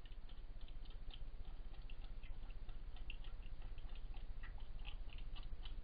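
Animals feeding at a dish, crunching food in rapid, irregular small clicks over a steady low hum.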